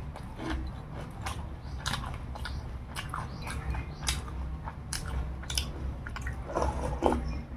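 Close-miked eating: biting and chewing food, with frequent sharp crunches and wet mouth clicks at an irregular pace.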